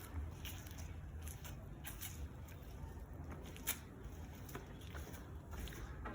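Footsteps walking across a concrete roof: irregular soft scuffs and taps, with one sharper click about three and a half seconds in, over a low steady rumble.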